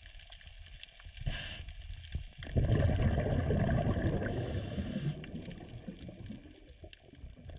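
Bubbling, gurgling water picked up underwater by the camera. A short hiss comes about a second in, then a louder low rumbling burst of bubbles from about two and a half seconds in that slowly fades away.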